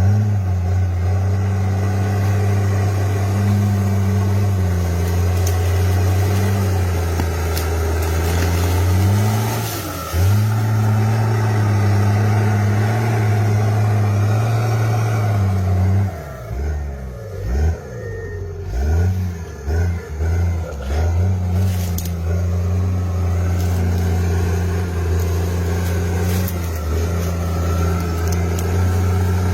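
Bulldozer's diesel engine running steadily under load. About halfway through, the engine note dips and surges unevenly for several seconds, then settles back to a steady drone.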